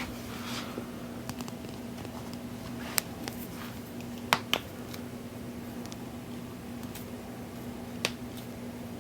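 Finger knuckle joints cracking: four sharp pops, one about three seconds in, two in quick succession a second and a half later, and one near the end.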